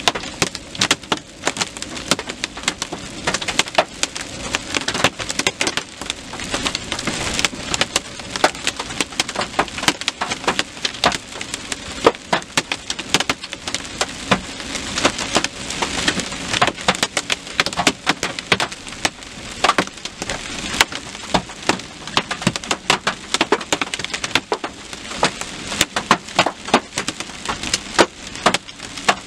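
Hailstones striking a vehicle's windshield and roof, heard from inside the cab: a dense, irregular hail of sharp knocks over the steady hiss of heavy rain.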